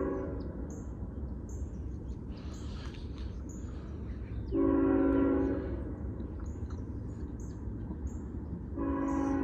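A CSX freight locomotive's multi-note air horn sounding for a grade crossing: a blast ending just at the start, a short blast of about a second midway, and another blast beginning near the end, over the steady low rumble of the train.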